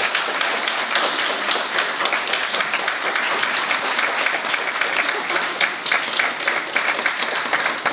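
Audience applauding steadily, with many individual hand claps standing out sharply.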